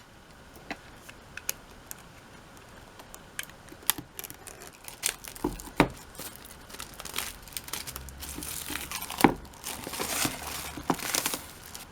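Plastic shrink wrap being torn and peeled off a CD album, crinkling, with scattered sharp clicks from handling. The crinkling is densest in the last few seconds.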